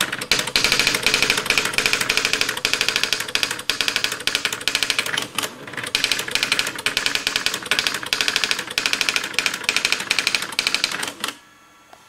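Olivetti RT 5400 electronic daisywheel typewriter printing stored text from memory in justified mode: rapid runs of type strikes, broken by brief pauses, stopping about eleven seconds in.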